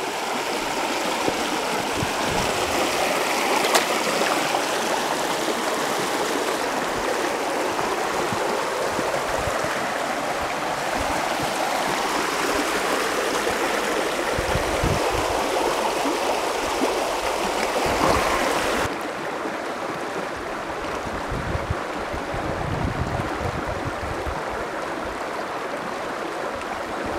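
Creek water rushing steadily through a low-water culvert bridge, a dense, even rush with a few low thumps. It drops a little in level about two-thirds of the way through.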